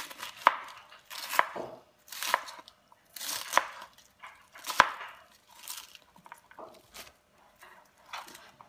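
Kitchen knife slicing through a cabbage wedge on a plastic cutting board. Each cut is a crisp crunch of leaves ending in a click of the blade on the board, about once a second for the first six seconds, then softer rustles as the shredded cabbage is swept together near the end.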